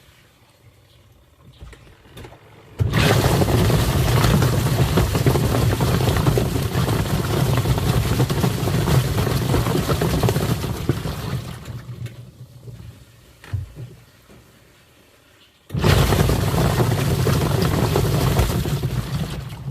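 Twin-tub washing machine's wash tub running: a motor hum with water churning and sloshing inside. It starts suddenly about three seconds in and winds down after about eight seconds, then starts again suddenly about sixteen seconds in.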